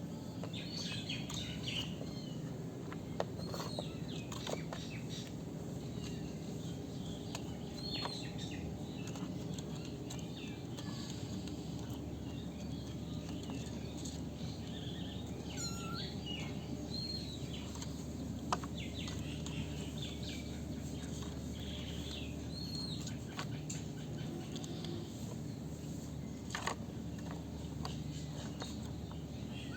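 Young kittens mewing: many short, high-pitched squeaks scattered throughout, over a steady low background hum.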